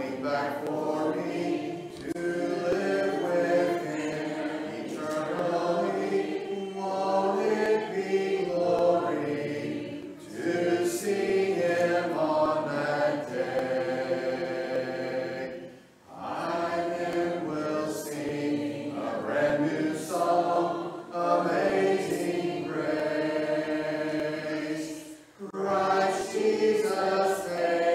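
A church congregation singing a hymn together a cappella, with no instruments, led by a song leader. The held, sustained lines break briefly about halfway through and again near the end.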